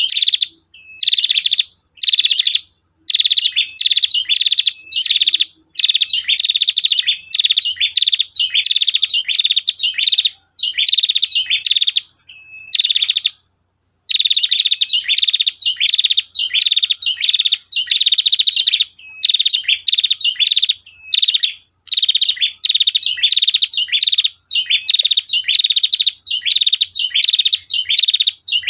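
Female prinia (prenjak) calling: a long run of short, fast, rattling 'tir' trills, one after another with brief gaps. There is a pause of about a second partway through.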